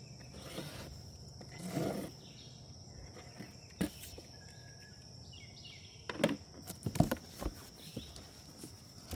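Knocks and rustles of a shipping box being handled and opened, in scattered bursts with a cluster near the end, over a steady high-pitched insect drone.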